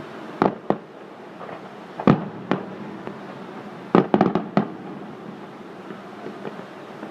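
Fireworks going off in sharp bangs. There are two near the start, two more around two seconds in, and a quick run of about five around four seconds in, over a steady background hiss.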